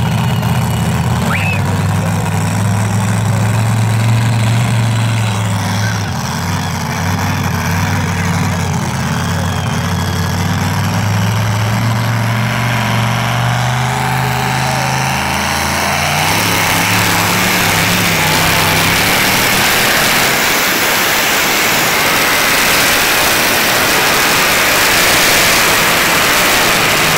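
Pulling tractor's engine, at first running steadily at low speed with its pitch rising and falling a few times. About 16 seconds in it opens up into a loud, rough full-throttle run as it hauls the weight-transfer sled down the pulling track.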